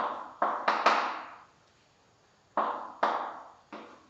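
Chalk striking and drawing across a blackboard: a quick series of sharp strokes, a pause of about a second, then a few more strokes as a ring of lines is drawn.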